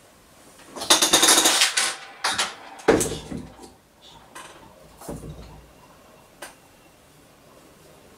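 A cordless drill being picked up and handled on a workbench: a rattling clatter about a second in, then a few separate knocks and clicks as its chuck is worked by hand.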